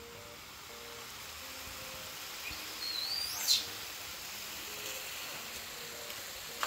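A bird gives a single short chirp about three and a half seconds in, sweeping upward in pitch, over a steady background hiss of outdoor noise.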